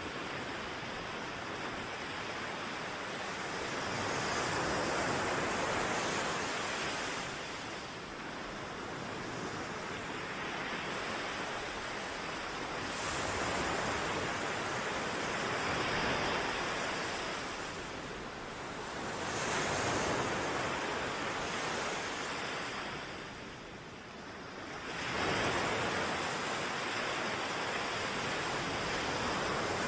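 Ocean surf: waves breaking and washing in, the sound swelling and easing in long surges every five or six seconds.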